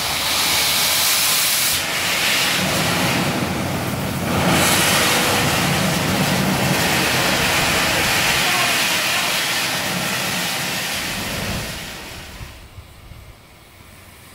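Steam hissing loudly out of BR Standard Class 5MT 4-6-0 No. 73082 'Camelot', blowing from low at the front of the engine by the cylinders, as with open cylinder drain cocks. The hiss swells about four seconds in and dies away near the end.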